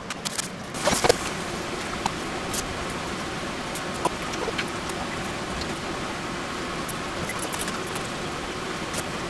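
Pot of water with meat boiling hard on the stove: a steady bubbling hiss with scattered small ticks and pops. A few sharp clicks and knocks come in the first second.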